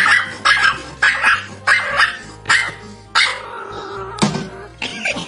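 A small dog barking over and over, about two barks a second at first and more spaced out toward the end, with background music underneath.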